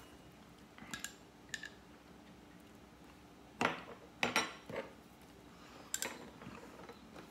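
Light clinks and knocks of metal spoons and a glass hot sauce bottle being handled as sauce is poured onto a spoon: a few short, separate sounds, the loudest cluster coming about three and a half to five seconds in.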